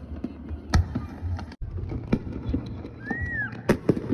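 Fireworks going off: a string of sharp bangs and cracks over a steady low rumble, with a brief rising-then-falling whistle about three seconds in.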